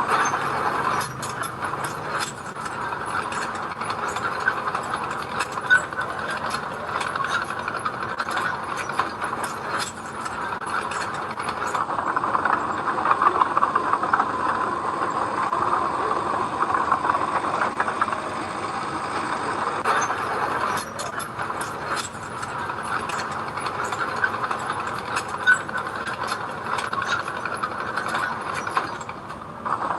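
Heavy earthmoving machinery at work: a diesel engine running steadily, with frequent metallic clanks and rattles.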